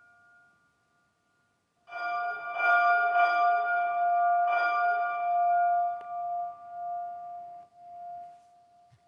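Bell rung in a bell tower: after the last ring fades to silence, a fresh stroke about two seconds in, then three more strokes over the next few seconds, each with a clear ringing tone that dies away slowly.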